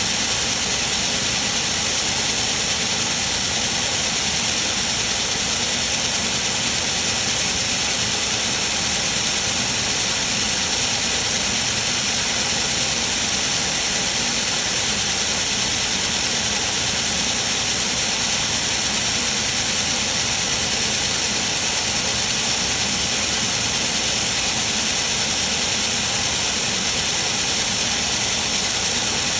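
Steady, unbroken high hiss of a robot-arm laser welding station running, with a faint steady whine in it.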